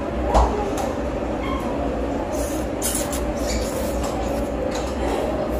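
Ramen noodles slurped in a few short hissy bursts about two and a half to three seconds in, over a steady low rumble. There is a sharp knock about half a second in.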